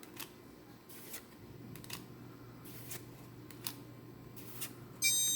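Dragon Ball Super trading cards being flipped through by hand, a soft flick about once a second. Near the end a sudden, louder sound effect with several steady high ringing tones comes in.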